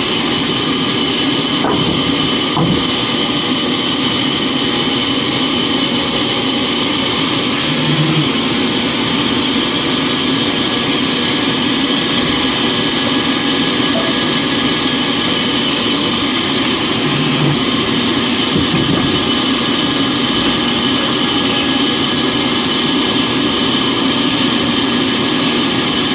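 A machine's motor running steadily and loudly, with a constant whine and no change in speed, and a couple of faint knocks about two seconds in.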